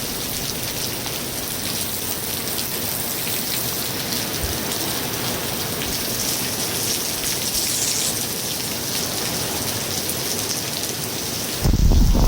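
Steady heavy rain falling and pattering on surfaces. Near the end, a sudden loud rumble of thunder breaks in.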